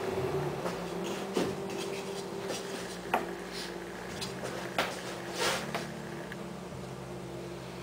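Brush and yardstick handling as stripes are painted on a sign panel: light scratchy strokes and a few sharp knocks and taps, over a steady low hum.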